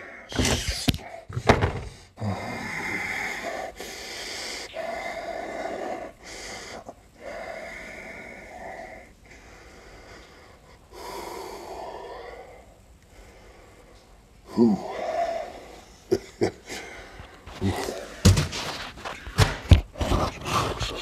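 A man's breathy straining: several long, noisy exhales and gasps one after another, then a run of sharp knocks and clicks of handling in the last few seconds.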